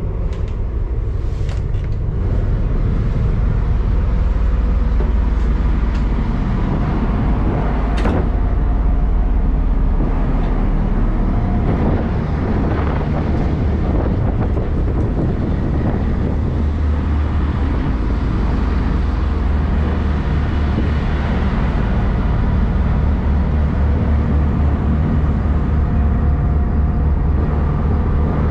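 Steady low rumble of the ro-ro ferry MV Earl Sigurd's engines and machinery running, with a faint steady hum over it, swelling a little near the end.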